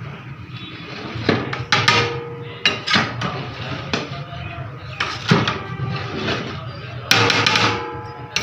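A long metal ladle scraping and knocking against the sides of a large metal cooking pot (degh) as cooked rice is turned over: a series of separate clanks, some ringing briefly, with a longer stretch of scraping about seven seconds in.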